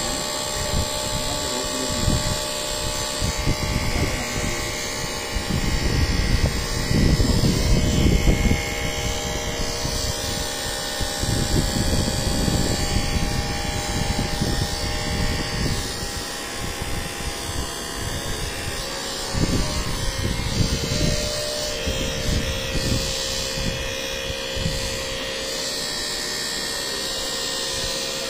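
Handheld electric massager buzzing steadily as it is pressed and moved over a patient's chest for chest vibration therapy, its load and rumble rising and falling irregularly as the head shifts against the body, loudest about six to eight seconds in.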